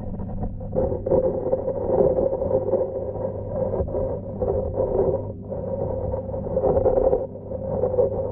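Muffled underwater sound of a pond heard through a submerged camera: a steady low hum under a rising and falling churning of water.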